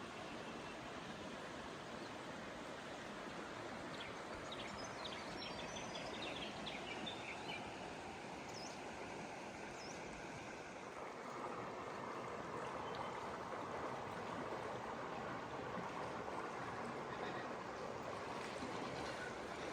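A small river running over rocks: a steady rush of water that gets a little louder about eleven seconds in.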